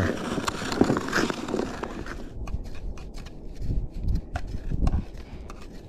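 Ice skate blades gliding and scraping over bare, glassy lake ice, a continuous hiss. About two seconds in this gives way to a few scattered light clicks and taps over a low rumble.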